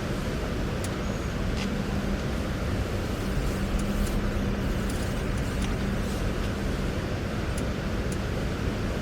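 A car driving: steady engine and road noise with a low, even drone and a few faint clicks.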